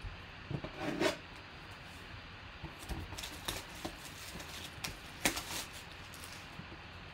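A pocket knife slits open a sealed cardboard trading-card box, followed by cardboard scraping and rubbing as the inner box slides out of its sleeve. Scattered short scrapes, rustles and taps, with the sharpest about a second in and about five seconds in.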